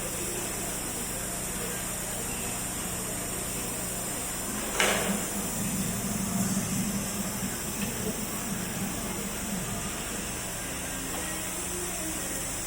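Steady hum and hiss of a CNC laser cutting machine running. A sharp knock comes about five seconds in, followed by several seconds of uneven low rumbling.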